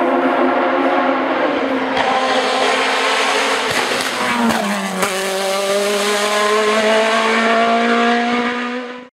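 Osella PA 2000 sports prototype's two-litre Honda engine at high revs as the car comes up a hillclimb road. Its pitch drops sharply as it passes close, about four and a half seconds in, then climbs steadily as it accelerates away. The sound cuts off suddenly near the end.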